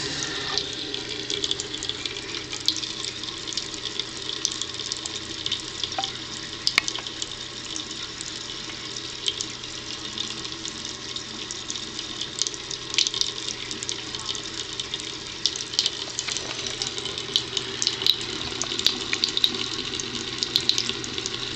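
Thin stream of water running from a bathroom faucet into a porcelain sink, a steady splash, with many small irregular clicks and splashes as a cat laps from the stream.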